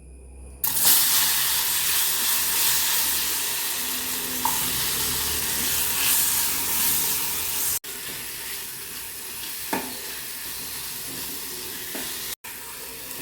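Small pieces of robusta banana sizzling as they fry in hot ghee in a pan, with a few light knocks from stirring. The sizzle starts about half a second in and drops to a quieter level about eight seconds in.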